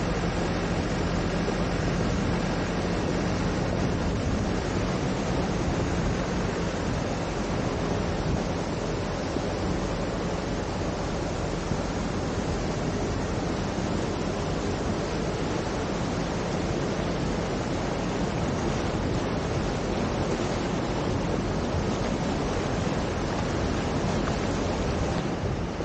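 Flash-flood water rushing and churning in a fast brown torrent under a road bridge, a steady dense noise with a faint low hum underneath.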